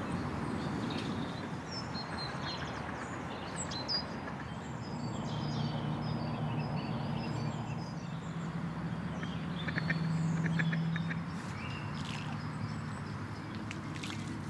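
Birds chirping and calling, with a quick run of short calls about nine seconds in, over outdoor background noise; a steady low hum rises in the middle and fades out again.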